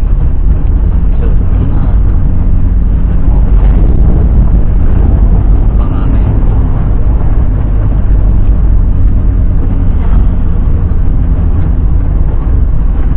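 Car on the move heard from inside the cabin through a dashcam microphone: a steady, loud low rumble of engine and road noise.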